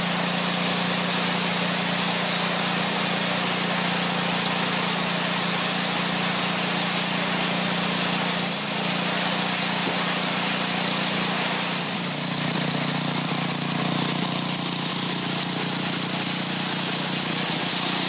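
Briggs & Stratton 8 hp OHV single-cylinder engine running steadily at idle. The engine is run on used oil to rinse water-contaminated, milky oil out of its crankcase.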